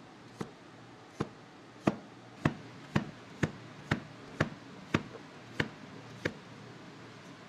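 Cleaver chopping a cucumber into slices on a plastic cutting board: eleven sharp knocks of the blade meeting the board, about two a second, that stop a little after six seconds in.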